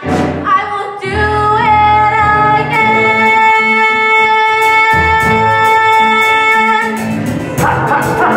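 A young female singer with a microphone sings a musical-theatre number over live band accompaniment, holding one long note through the middle.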